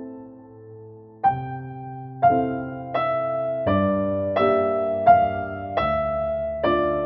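Gentle piano music. A held chord fades away, then from about a second in, notes and chords are struck roughly every three-quarters of a second, each one ringing on as it fades.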